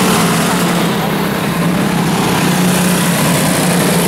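Several quarter midget race cars' small single-cylinder engines buzzing steadily as they lap the dirt oval.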